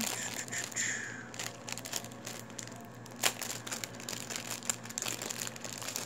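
Packaging crinkling and rustling as it is handled, with one sharp click about three seconds in.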